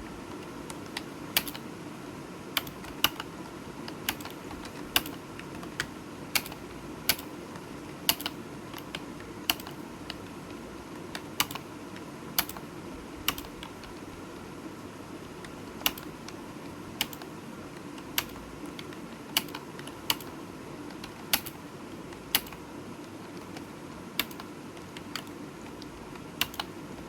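Computer keyboard keystrokes, single sharp clicks at an uneven, unhurried pace of about one a second, over a steady low hum.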